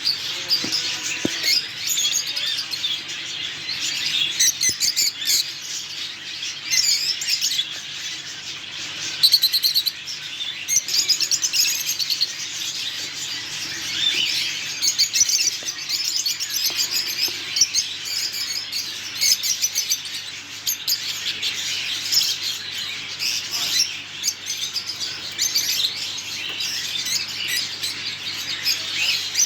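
Many caged pet birds chirping at once, a dense, continuous chatter of overlapping high calls.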